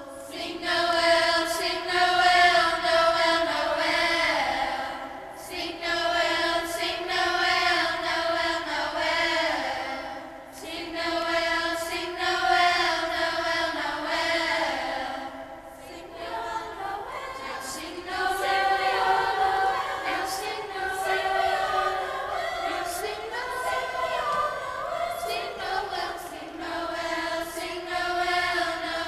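A school choir singing sustained phrases of a holiday song, with short breaks between phrases every few seconds.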